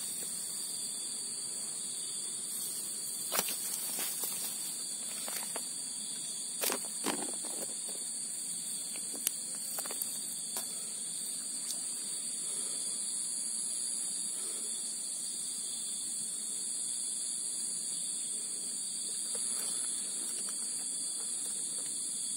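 Steady, high-pitched drone of an insect chorus, with a weaker second band lower down, holding constant throughout. A few short clicks and rustles break in during the first half.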